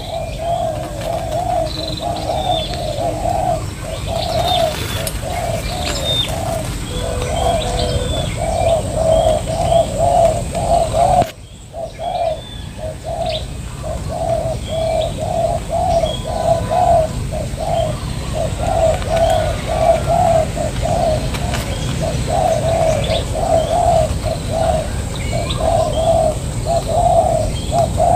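Spotted doves cooing, one phrase after another in a steady run, with small birds chirping high above them. The cooing dips briefly about eleven seconds in.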